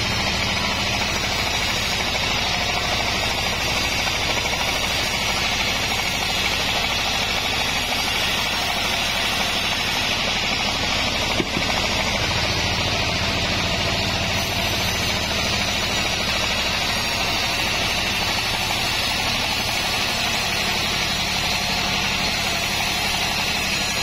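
Vertical bandsaw mill sawing lengthwise through a log: a steady machine hum under an even, constant hiss of the blade cutting wood.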